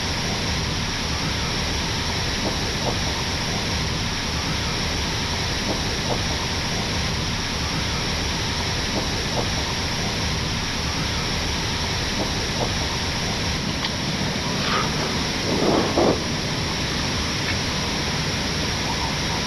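Steady cockpit noise of an Airbus A319 slowing and taxiing just after landing, its engines at idle, with a brief louder sound about three-quarters of the way through.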